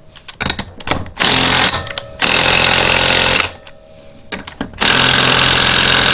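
Cordless impact wrench hammering on old seized ATV wheel lug nuts: a few short trigger blips, then three bursts of rapid impacting, the last and longest starting near the end.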